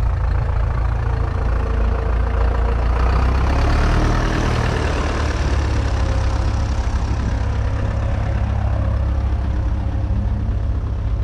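1949 Field Marshall Series 2's 5.1-litre single-cylinder two-stroke diesel engine idling steadily, with its fast, even firing beat.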